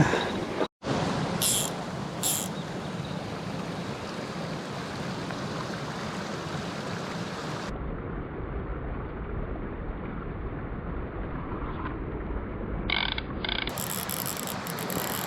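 Mountain stream flowing steadily, a constant wash of water. The sound cuts out for a moment about a second in, and it turns duller and deeper for several seconds in the middle.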